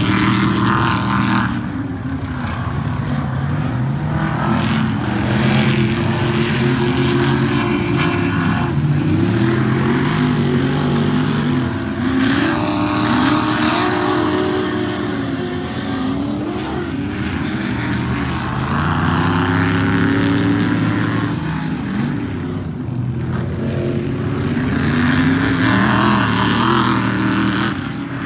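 Several Ultra4 off-road race cars' engines running hard around the course, overlapping, their pitch rising and falling again and again as they accelerate, shift and back off.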